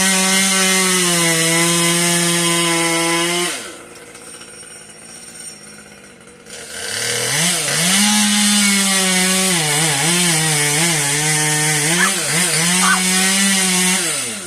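Two-stroke chainsaw running at high revs. About three and a half seconds in it drops off, then it revs back up about seven seconds in. Its pitch dips and recovers several times before it lets off near the end.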